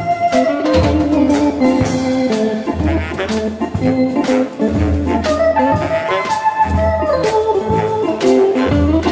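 A band plays an instrumental break led by Hammond organ chords, over electric guitar, bass and a steady drum beat.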